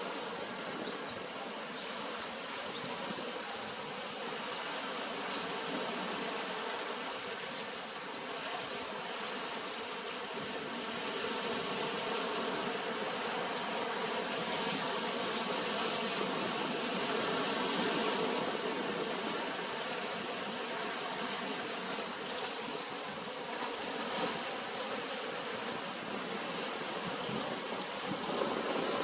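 Surf washing onto a sandy beach in a continuous hiss that swells louder toward the middle.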